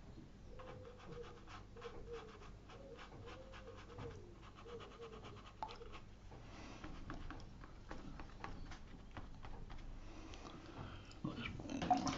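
Stiff flat watercolour brush scrubbing damp paper in quick scratchy strokes to lift colour out, with a faint wavering whine over the first half and a louder rub near the end.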